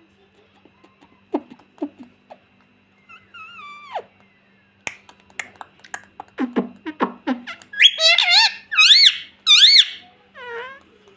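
Ringneck parrot calling: scattered clicks and a falling whistle, then about eight seconds in a run of loud, high, rising-and-falling whistled squawks, ending with a fainter wavering call.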